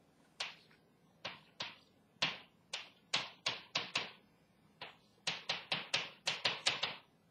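Chalk writing on a chalkboard: a quick series of sharp taps, about twenty in all, coming in runs with a brief pause about halfway.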